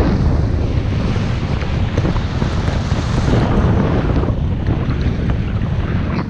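Wind buffeting the microphone of a GoPro carried by a skier going downhill, a loud steady low rush mixed with the hiss of skis through deep powder snow.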